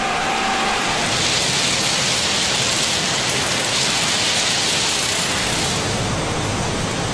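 Steady, loud noise of a railway track-laying machine at work, with a rushing hiss from about a second in to past the middle as crushed-stone ballast pours from its chute onto the sleepers.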